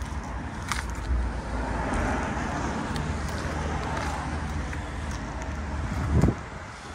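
Road traffic noise, a vehicle passing by, with wind rumbling on the microphone; a loud low wind buffet comes about six seconds in.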